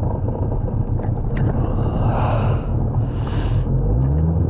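Jet ski engine running with water rush and wind buffeting the microphone; about four seconds in the engine speeds up and settles into a louder, steady hum.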